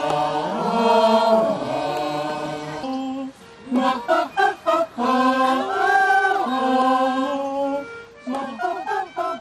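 A small choir sings vocal warm-up phrases without words, a few short notes followed by long held notes, with the pitch sliding up and down between them.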